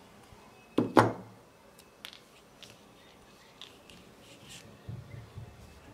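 Two loud, sharp clicks close together about a second in as pliers work the metal tip of an electric soldering iron, followed by faint clicks and taps of hands handling the iron's parts.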